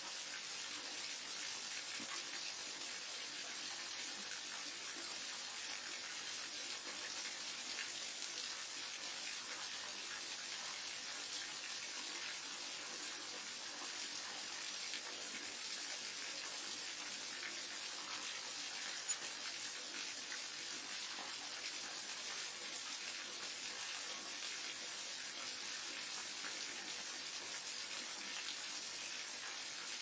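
Waterfall: a steady rush of falling water, an even hiss that doesn't change, with one brief click about two-thirds of the way through.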